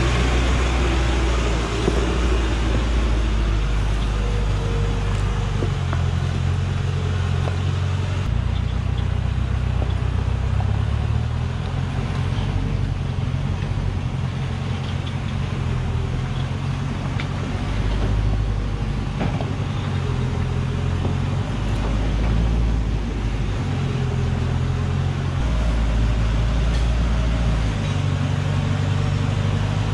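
Heavily loaded Hoa Mai logging truck's engine labouring along a muddy track, a loud low rumble whose pitch steps up and down as the revs change. The truck is running with its rear differential broken, pulling on the front axle only.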